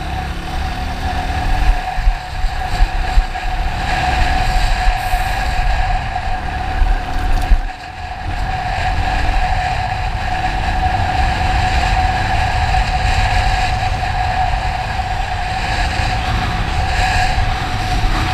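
A moving motorcycle: a steady mechanical whine over a heavy low rumble of wind buffeting the microphone, dipping briefly about eight seconds in.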